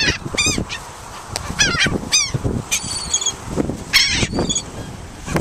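A flock of seagulls calling: many short, harsh calls, several overlapping, each bending up and down in pitch, from birds crowding in to be fed.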